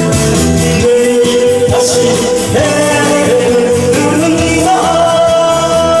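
Male singer singing a Korean trot song through a microphone and PA over a loud backing track. He holds long notes, stepping up to a higher held note about four seconds in.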